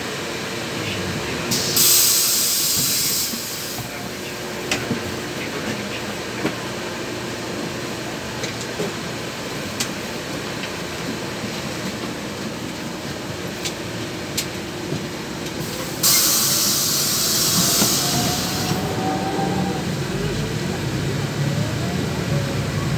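Inside a LiAZ 6213.21 articulated diesel bus: steady engine and cabin drone, broken twice by loud bursts of compressed-air hiss from the bus's pneumatic system, about two seconds in and again about sixteen seconds in, each lasting two to three seconds. Near the end a rising whine and deeper rumble come in as the bus gathers speed.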